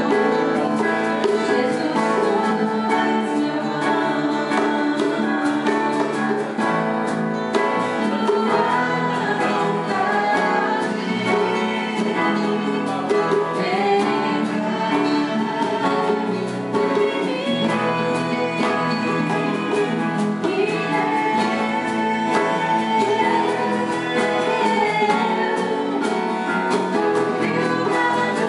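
Worship music: singing over instrumental accompaniment with guitar, a praise song played steadily throughout.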